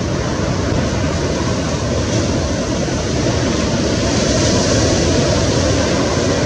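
Steady rushing noise of wind and surf, with no distinct engine tone.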